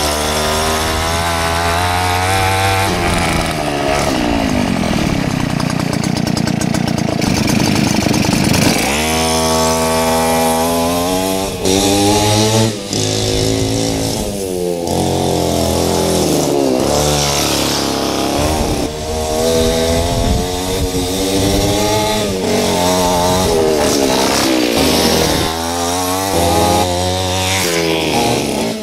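Small two-stroke chainsaw engine driving a home-made mini motorbike, revving up and dropping back over and over as the bike is ridden.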